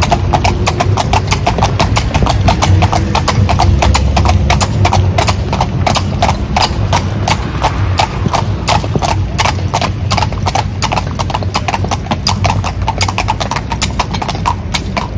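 Carriage horses' hooves clip-clopping on the asphalt road as they pull a calèche at a steady trot, a quick even rhythm of about four to five strikes a second. A low rumble runs underneath, heavier in the first few seconds.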